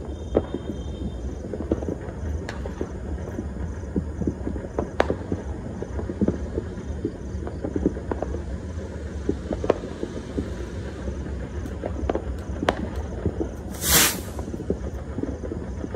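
Fireworks and firecrackers popping irregularly in the distance over a steady low rumble, with one louder bang near the end.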